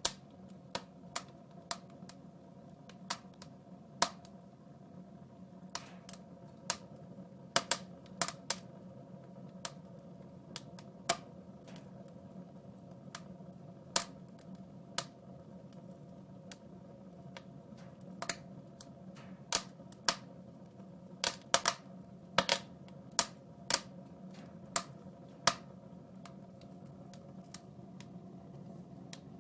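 Wood fire in a fireplace crackling: irregular sharp snaps and pops, roughly one or two a second, over a steady low hum.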